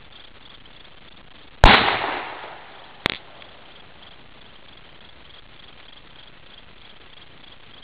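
A single loud bang that fades out over about a second, then a smaller sharp crack about a second and a half later.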